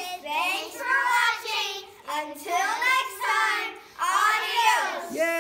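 A group of young girls calling out together in high voices, a chant or sung shout in several short phrases, with their voices overlapping.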